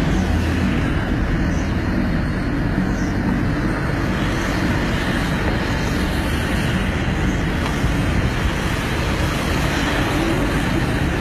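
Steady road and wind noise of a car driving at speed, heard from inside the car.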